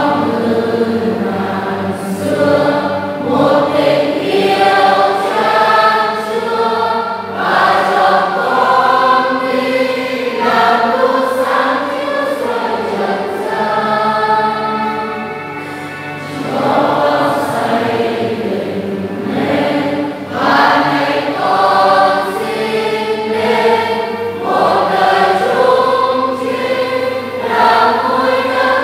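A choir singing a hymn in several voices over a steady low accompaniment.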